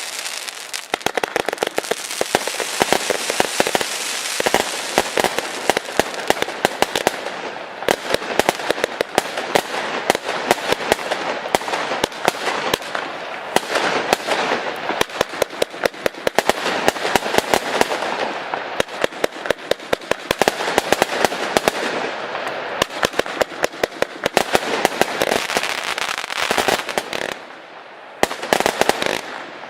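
WECO Showdown firework firing: a dense, rapid run of sharp bangs over a continuous noisy crackle, easing briefly near the end before picking up again.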